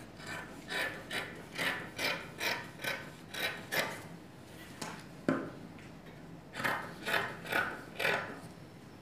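Fabric scissors snipping through a layer of fabric and its lining, cut together. The strokes come quickly, about two a second, then pause for about two seconds before a few more snips.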